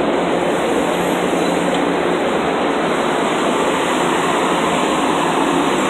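Steady, loud rushing hum of a standing LIRR M3 electric train.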